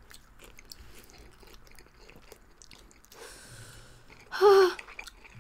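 People chewing mouthfuls of spicy instant ramen noodles, with faint wet clicks of chewing, then a short slurp about three seconds in. Near the end a brief voiced hum from one of the eaters is the loudest sound.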